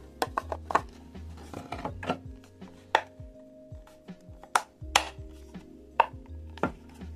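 Hard 3D-printed plastic parts clicking and knocking against each other in irregular sharp taps as they are handled and fitted together, over soft background music.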